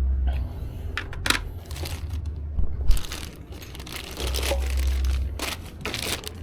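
Packaging being handled and torn open: irregular crinkling, crunching and tearing, with a low rumble of handling near the start and again about four seconds in.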